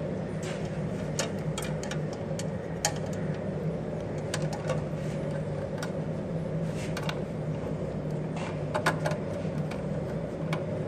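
A steady low mechanical hum with scattered light clicks and taps.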